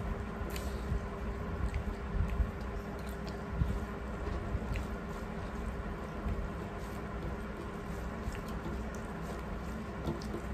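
Chewing and the soft squish of rice mixed with dal by hand, with small clicks of fingers against metal plates, over a steady low hum.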